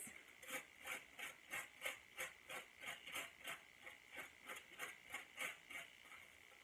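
Faint, even strokes of a tint brush painting lightener onto a hair section laid on foil, about three a second, fading out about six seconds in. A thin, steady high tone sits underneath.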